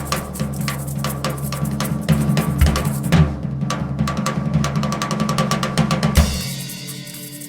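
Drum kit played in fast, dense fills of snare, bass drum and rim strikes over low sustained keyboard notes. About six seconds in the drumming stops and a held keyboard chord rings on.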